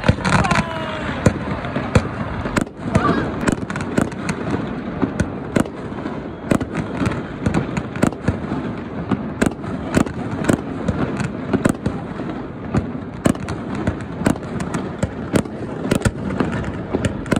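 Fireworks display: aerial shells bursting in a fast, uneven series of sharp bangs and crackles, two or three a second.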